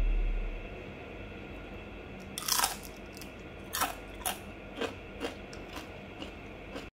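Crispy batter-fried kangkung (water spinach) leaves crunching as they are bitten and chewed. There is one loud crunch about two and a half seconds in, then a run of smaller crunches about every half second. Background music fades out in the first half-second.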